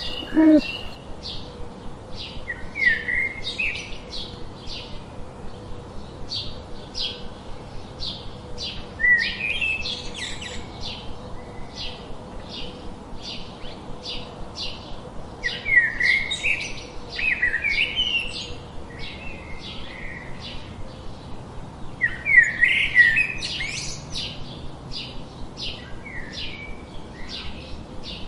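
Birdsong: a bird repeats short high chirps about twice a second, while louder warbled phrases break in several times.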